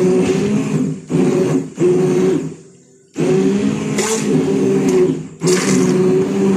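Moulinex immersion blender puréeing cooked tomatoes in a pot: a steady motor hum with churning. It is switched off and on several times, with the longest gap near the middle, where the motor winds down before starting again.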